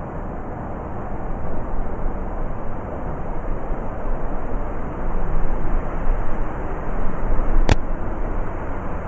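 Blizzard wind blowing in strong gusts, with a deep rumble, swelling twice. A single sharp click comes near the end.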